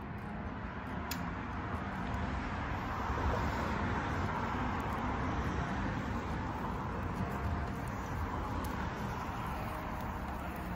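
Road traffic: a steady hiss of passing cars that swells about three seconds in and then eases off.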